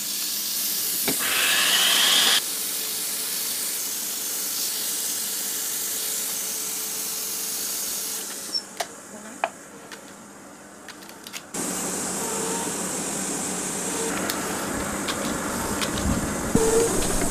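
A steady hiss of gas flowing through a U-2 pilot's full-pressure suit helmet. It drops away for about three seconds midway, where a few small clicks are heard, then resumes.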